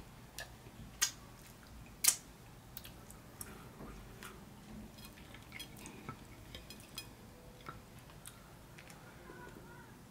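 Close-up chewing of soft stewed beef, with wet mouth clicks and smacks scattered throughout and two sharper clicks about one and two seconds in.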